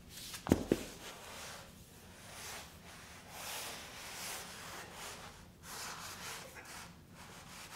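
Two sharp knocks about half a second in, then on-and-off rustling and scraping as a rubber anti-vibration mat is handled and slid under a steel storage-rack beam on a concrete floor.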